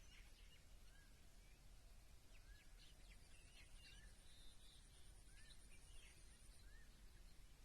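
Faint chorus of small birds chirping: short scattered calls and little rising chirps, roughly one a second, over a low steady rumble. A thin, high, steady tone runs through the middle few seconds.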